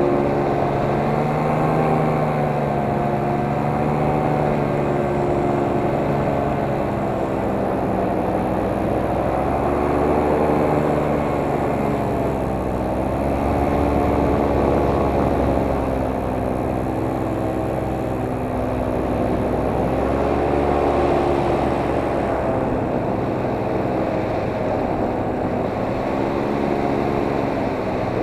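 Camera drone's electric motors and propellers whirring, the pitch rising and falling every few seconds as it manoeuvres.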